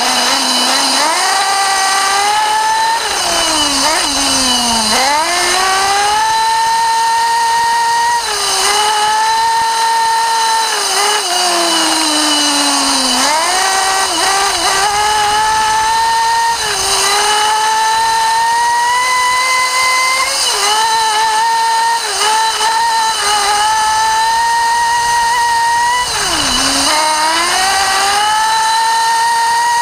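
Small two-stroke nitro engine of an RC buggy, heard from on board the car, running at high revs. Its pitch drops each time the throttle is lifted and winds back up as it accelerates again, about half a dozen times.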